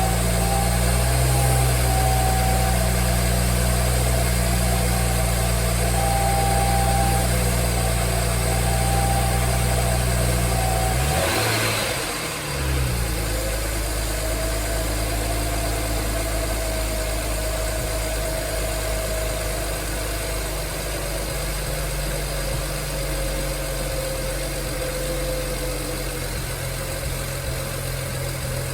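A 2009 BMW 335i's twin-turbo straight-six idling steadily on freshly installed spark plugs and coil packs. About eleven seconds in, the engine note dips briefly and comes back up, then settles to a steady idle again.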